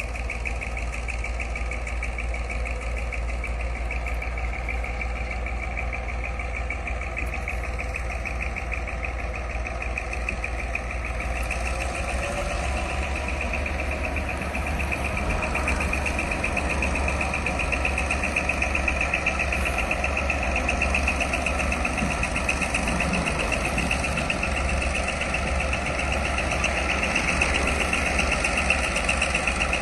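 Diesel-electric freight locomotives (G22UB units) working as the loaded train starts out of the yard, a steady diesel engine sound that grows louder from about twelve seconds in.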